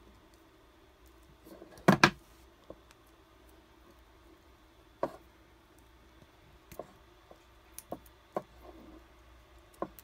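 Network cable crimping tool snipping through the camera's cable about two seconds in, a loud sharp double snap, followed by scattered small clicks and taps as the cut wires and tool are handled.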